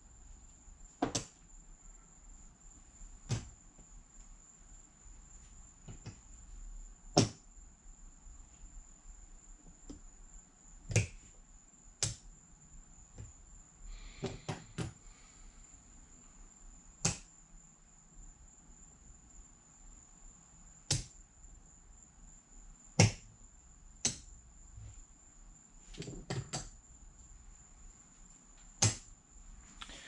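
Casino chips clicking as bets are paid out and stacked on a craps table: about a dozen separate sharp clacks spread irregularly, over a faint steady high-pitched whine.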